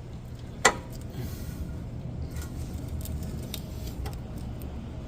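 Handling noises from greasing and fitting a brake pad into the caliper bracket: one sharp click a little over half a second in, then a few faint ticks, over a steady low hum.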